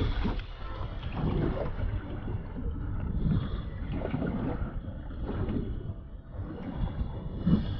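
Wind buffeting the microphone in uneven gusts on a small fishing boat out on the sea.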